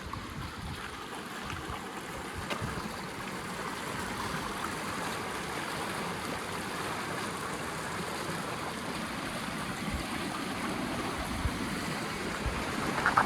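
River in flood rushing steadily, a dense even wash of fast-moving water that grows a little louder. A few low thumps come near the end.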